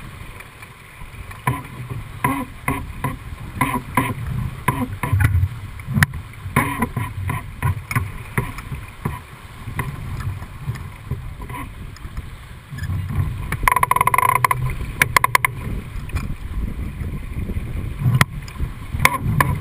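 Dufour 45e racing yacht under way: wind buffeting and water rushing past the hull, with scattered knocks and clicks from the deck gear. About fourteen seconds in, a brief burst of rapid clicking with a ringing tone.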